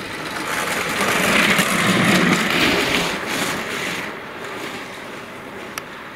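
A minikára, an engineless downhill gravity racing car, rolling past with the rumble of its wheels on the road, swelling to a peak about two seconds in and fading away by about four seconds.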